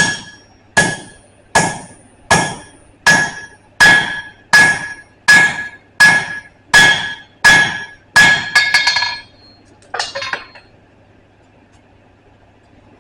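Blacksmith's hammer striking steel on an anvil at a steady pace, about one blow every three-quarters of a second, each ringing. A quicker cluster of strikes comes around eight seconds in and a last clatter near ten seconds, then the blows stop.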